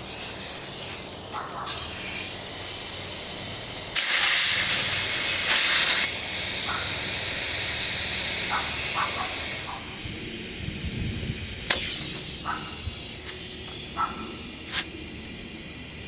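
Compressed air hissing through an air hose chuck into a tire valve stem as the tire is inflated, with a much louder burst of hiss for about two seconds, starting about four seconds in. After about ten seconds the hiss stops and a few light clicks follow.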